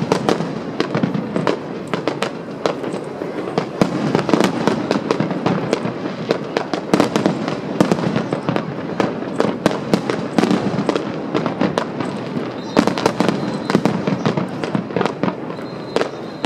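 Fireworks display going off: a dense, continuous run of bangs and crackles, several a second.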